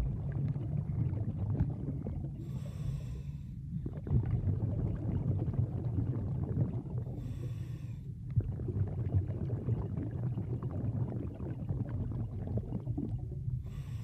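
Steady low underwater rumble of moving water on a submerged camera's microphone, broken by three short hissing breaths of the swimmer about five seconds apart.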